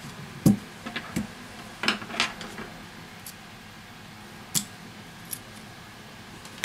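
Scattered sharp clicks and light knocks from a disassembled smartphone and its display module being handled and set down on a rubber repair mat, the loudest about half a second in and a few more spread through the rest.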